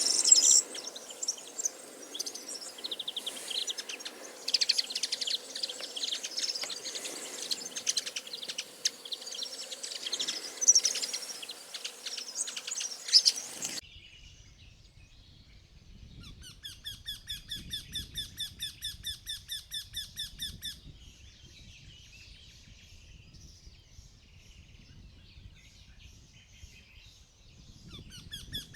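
Many birds chirping and calling together, then an abrupt cut to a single bird giving a rapid series of high, squeaky repeated notes, about three a second. It gives two bouts, the second starting near the end.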